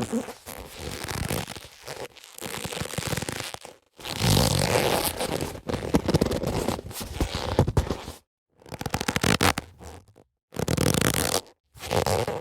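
Boxing gloves being handled and rubbed: a crackly scraping friction sound in several short takes, each cut off by a brief gap of total silence.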